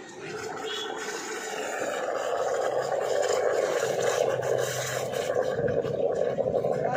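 Espresso machine steam wand steaming milk in a stainless steel pitcher: a steady hiss that grows louder over the first few seconds and then holds.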